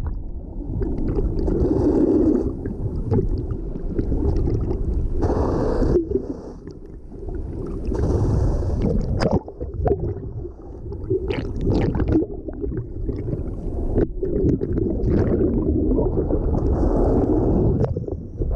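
Muffled underwater sound from an action camera held below the sea surface: water rushing and gurgling around the housing in swells, with scattered knocks.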